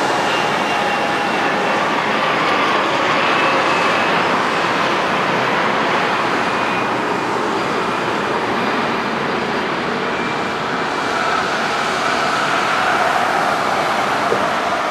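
Airbus A320-200 jet engines at takeoff power as the airliner climbs away: a steady rushing jet noise with faint whining tones that shift slowly in pitch.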